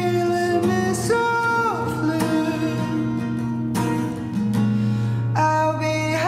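Song with a male singer over acoustic guitar, holding long notes that glide down about a second and a half in and rise again near the end.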